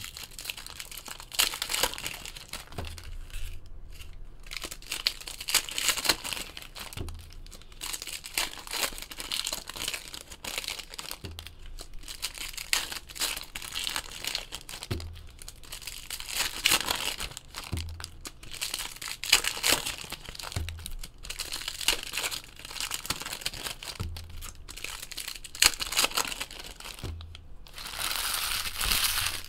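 Foil hockey card pack wrappers being torn open and crinkled by hand, with a soft low thump every three to four seconds.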